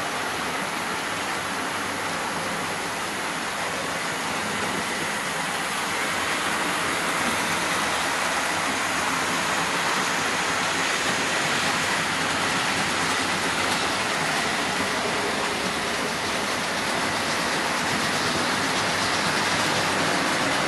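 OO gauge model trains running together, a steady whirr of small electric motors and metal wheels on the track, growing a little louder about six seconds in.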